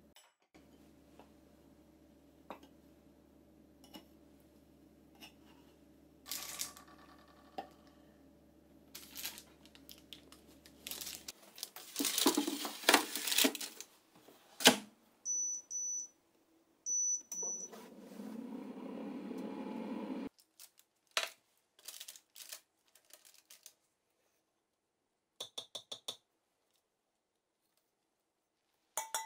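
Kitchen handling clatter and rustling as a mold of flour on parchment paper is set into an air fryer, followed by the air fryer's control panel beeping twice and its fan running for a couple of seconds before stopping abruptly. A few quick clicks come near the end.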